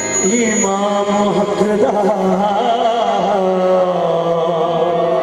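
Qawwali singing with harmonium: a voice holds long, wavering, ornamented notes over a steady drone.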